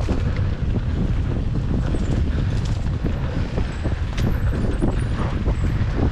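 Wind buffeting the action camera's microphone as a Specialized Demo 8 mountain bike rolls fast down a dry dirt trail, with steady tyre rumble and small irregular rattles and knocks from the bike over bumps.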